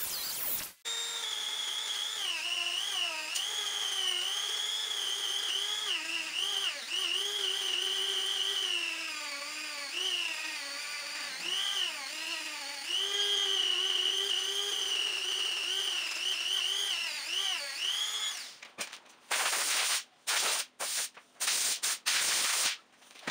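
Small rotary tool with a polishing wheel whining as it polishes a brass ferrule, its pitch dipping and wavering as the wheel is pressed onto the metal. Near the end the sound breaks into a few short bursts of hiss with gaps between.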